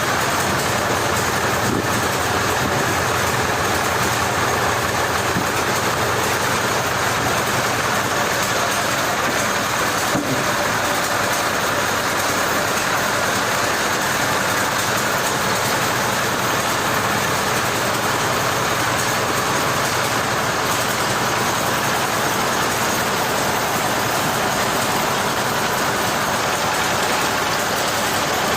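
Machinery running with a loud, steady noise that does not change, like an engine or a large saw.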